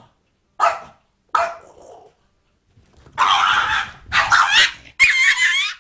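A small dog barking: two short barks, then four longer, louder, shrill cries with a wavering pitch.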